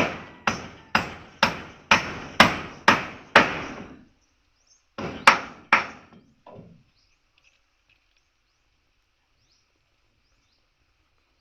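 Repeated sharp blows on wood, about two a second for the first three and a half seconds, then two more and a weaker one a little later. Afterwards faint bird chirps and a steady high insect hum.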